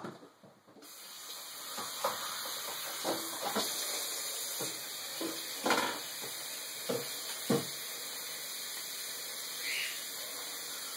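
Tap water running steadily into a bottle, turned on about a second in, with a few short knocks of the bottle and sink.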